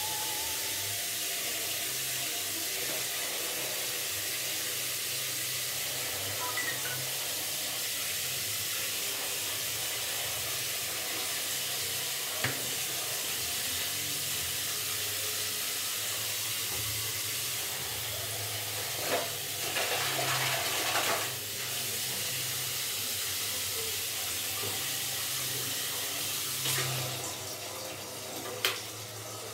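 Water running steadily from a tap through a hose into a plastic bucket, with a few short knocks and a brief louder rush of noise about two-thirds of the way through.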